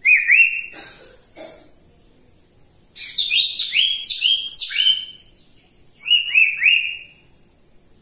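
African grey parrot giving bursts of short, rising whistled chirps: a quick pair at the start, a longer run of half a dozen in the middle, and three more near the end.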